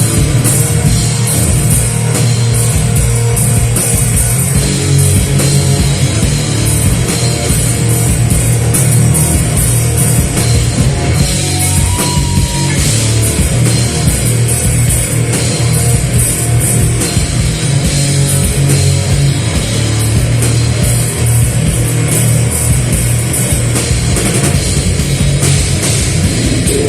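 A live rock band playing loud and heavy, with a full drum kit and guitars.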